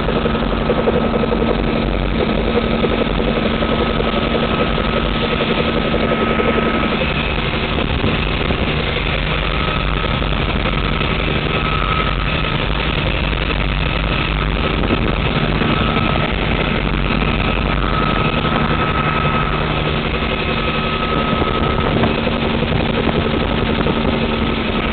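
Bell 47 helicopter in flight, heard from inside the cabin: the steady drone of its piston engine and rotor.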